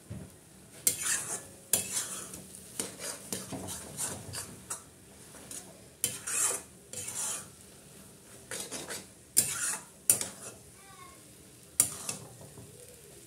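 Steel spatula stirring and tossing Maggi noodles in a metal kadai, scraping against the pan in irregular strokes.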